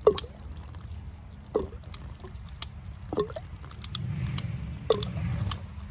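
An animal calling four times, each call short and falling in pitch, about every second and a half, with scattered sharp clicks in between.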